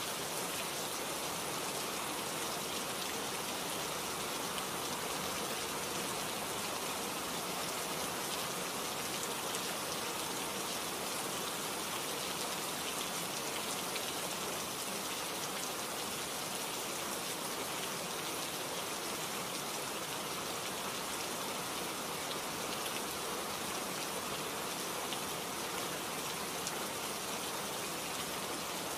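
A steady, even hiss like falling rain that holds without change throughout.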